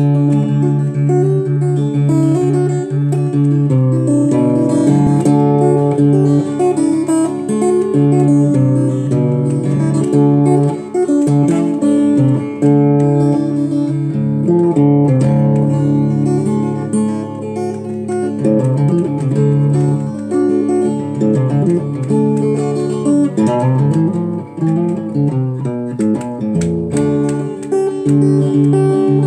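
Taylor T5z hybrid acoustic-electric guitar played as an improvisation, with held low notes under changing melodic lines and chords.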